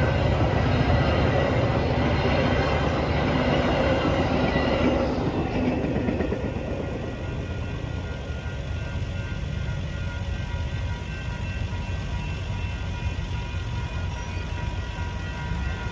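Metra bilevel passenger cars rolling past over the grade crossing with a clickety-clack of wheels; the rolling noise fades about five to six seconds in. The crossing's electronic bells go on ringing while the gates stay down.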